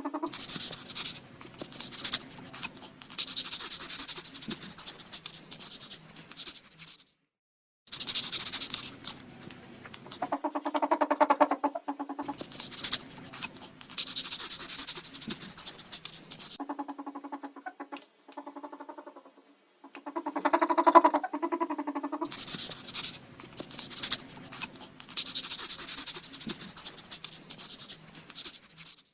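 Ferrets rustling and scratching, with short pitched calls between, in several separate clips that cut off abruptly into silence.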